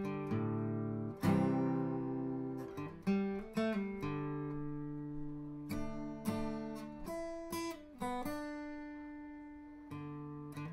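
Background music: acoustic guitar chords strummed and picked, each one ringing out and fading before the next.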